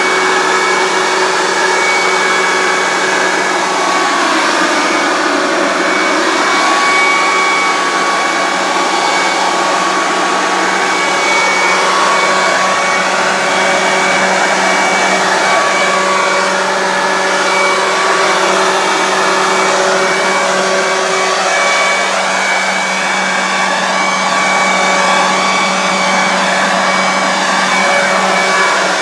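Corded electric leaf blower running steadily, a loud motor whine over a constant rush of air, blowing over a horse's wet coat to dry it. Its pitch shifts slightly as the nozzle is moved around.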